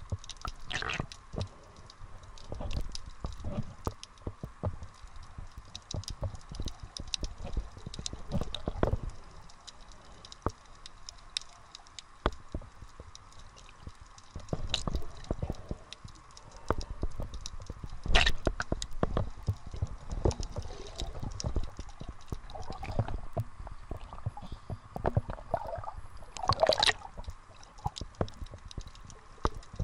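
Underwater sound of moving water, with many scattered clicks and pops and an uneven low rumble; a louder burst of sound comes near the end.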